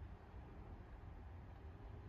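Near silence: faint steady background noise with a low rumble.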